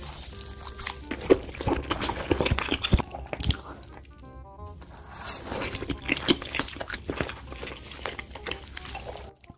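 Background music over close-up eating sounds of raw salmon being bitten and chewed: many short clicks and smacks of the mouth.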